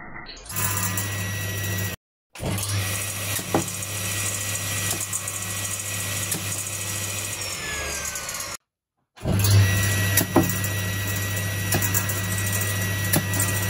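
Circular saw running with a steady hum and a thin high whine, with sharp cracks as red onion chunks strike the spinning blade. The sound breaks off twice in short silent cuts, and in the middle stretch the whine sags in pitch before the cut.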